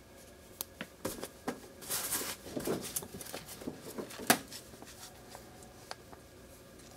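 Close handling noise from fingers working a foam-tape-wrapped micro motor and a carbon fibre frame: irregular small clicks and scratchy rustling, with one sharp click about four seconds in.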